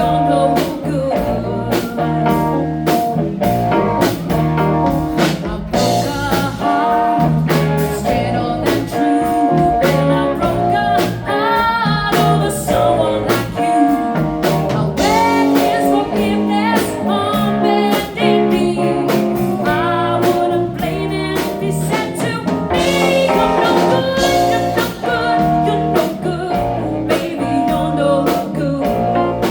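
Live band playing a blues-rock song, a singer's voice over guitar and a steady drum-kit beat.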